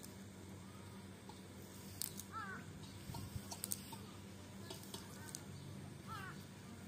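Faint scattered clicks and rustles of a cast net being handled and gathered on grass, with a few short high chirps.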